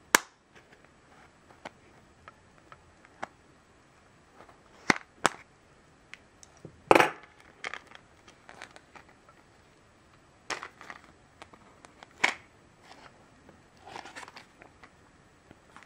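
Clear plastic packaging crackling and clicking as it is slit with a craft knife and pulled open by hand: irregular sharp crackles, the loudest near the start and about seven seconds in.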